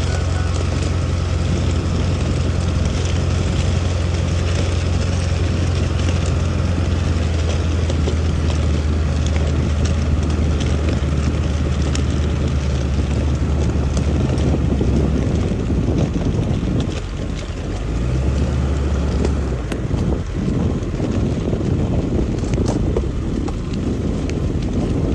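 A vehicle running as it is driven, with a steady low engine drone and wind buffeting the microphone. The drone drops away about two-thirds of the way through and the wind noise carries on.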